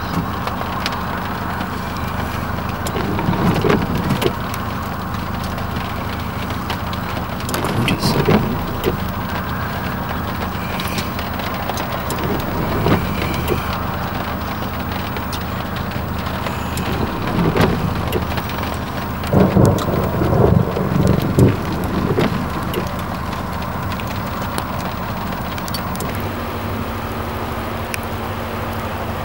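Thunderstorm ambience: steady wind noise over a low hum, with several louder rumbling swells, about 3, 8 and 17 seconds in, and the longest from about 19 to 22 seconds in.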